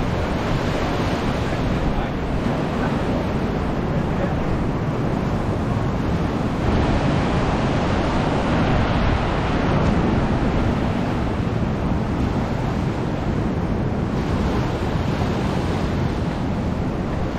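Ocean surf washing onto the shore in a steady rush, swelling louder twice as waves break, with wind buffeting the microphone.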